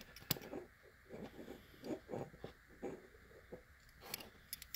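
Fingers handling a small diecast model car: a sharp click just after the start, a string of soft brief rubbing sounds, and a few light clicks near the end.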